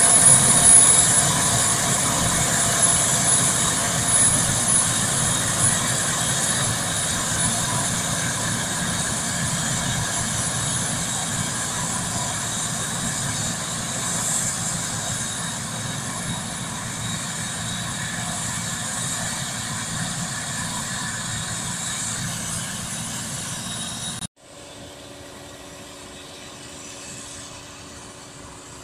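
SK-5 Niva combine harvester running under load while harvesting wheat: the engine, threshing gear and straw chopper make a steady mechanical drone with a high whine near the start, fading slowly as the machine moves off. About 24 seconds in, the sound cuts abruptly to a quieter, steadier hum of the combine at a greater distance.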